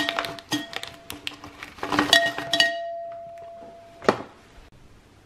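Glassware clinking several times, one clink about two seconds in ringing on for about two seconds with a clear pure tone; a single sharp knock about four seconds in.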